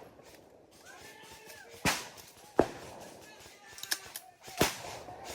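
Airsoft guns firing scattered single shots: about four sharp cracks a second or so apart, the loudest about two seconds in, with a voice calling out faintly in between.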